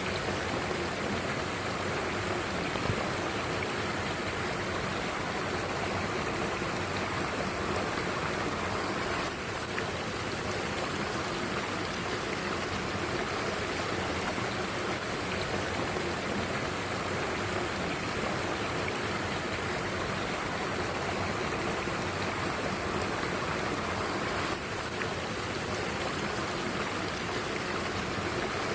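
Mountain stream water flowing, a steady rushing noise.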